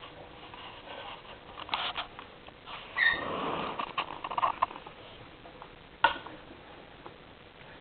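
Hamsters eating insects: scattered small crunching clicks, a louder rustling stretch lasting over a second from about three seconds in, and a single sharp click about six seconds in.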